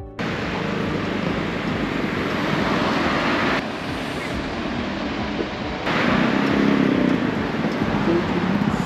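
Steady street traffic noise: a continuous rush of road vehicles, with the level dropping suddenly about three and a half seconds in and rising again about six seconds in.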